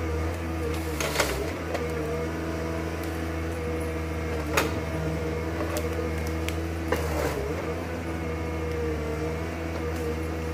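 Prosilva S4 harvester's diesel engine running steadily under load while the crane and Waratah harvester head work a tree. A few short sharp cracks are heard, the clearest about a second in and near the middle.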